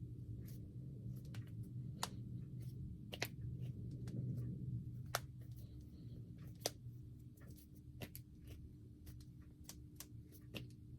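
Knuckles and finger joints being cracked: a series of sharp, irregular pops and clicks over a low background hum.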